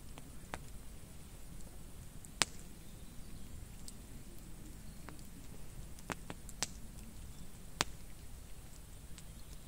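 Wood campfire crackling: scattered sharp pops and snaps, about eight in all and the loudest three or four seconds apart, over a low steady rumble.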